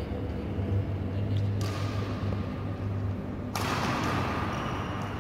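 Badminton rally in a large, bare sports hall: racket hits on the shuttlecock and shoe thuds on the wooden court, over a steady low hum. A hiss comes in suddenly about a second and a half in and grows louder past three and a half seconds.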